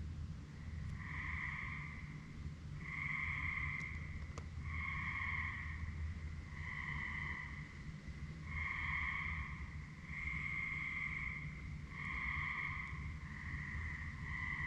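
A frog calling at night: a buzzy trilled call about a second long, repeated roughly every two seconds.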